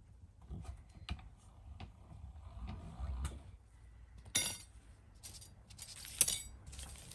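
Lengths of metal fret wire and a bench-mounted fret-bending roller tool being handled: scattered light clicks, then a bright metallic rattle about four seconds in and more jingling clatter near the end, with one sharp click about six seconds in.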